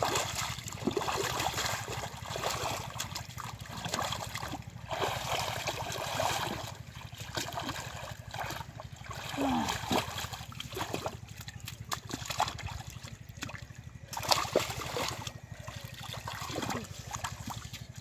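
Hands splashing and squelching in shallow muddy water, with irregular sloshing and trickling as the mud and water are stirred and scooped.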